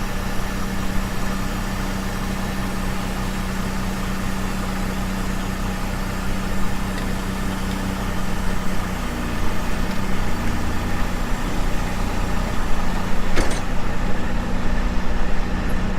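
A large engine idling steadily. Its note shifts and grows rougher about nine seconds in, with a single click a few seconds before the end.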